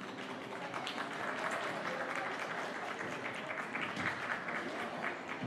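Audience applauding: many people clapping, building up over the first second and then keeping on steadily.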